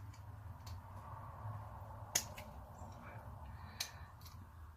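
Several faint, sharp clicks of a small hand tool working at the circlip that holds the sander's armature bearing, the loudest about two seconds in, over a faint low hum.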